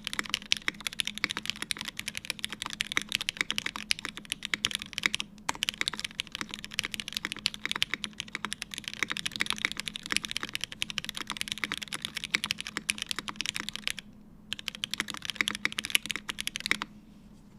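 Fast, steady typing on a top-mount Haus mechanical keyboard with an aluminium plate, lubed Cherry MX Hyperglide Black linear switches and GMK keycaps. There are brief pauses about five seconds in and about fourteen seconds in, and the typing stops shortly before the end.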